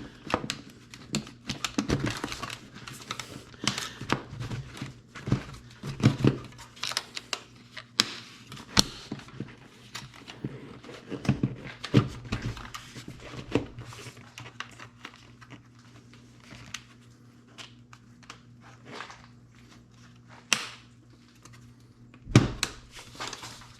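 A new air filter and its plastic housing being handled and pushed into place: irregular clicks, knocks and rubbing, with a louder thunk near the end. The stiff new rubber seal makes the filter hard to seat.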